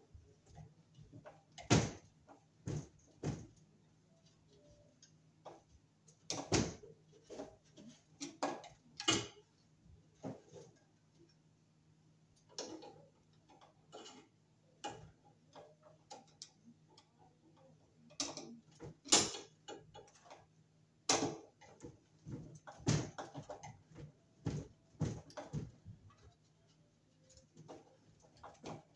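Scattered, irregular clicks and knocks of hands working a cable into an overhead metal electrical box, with a faint steady low hum underneath.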